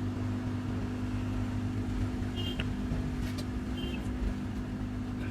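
Steady mechanical hum from a small motor or fan, with two brief high chirps, one about halfway through and one near the end.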